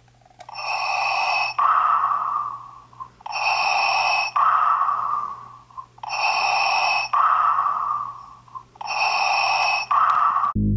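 Darth Vader's respirator breathing sound effect: four slow in-and-out breaths repeating evenly, about every three seconds.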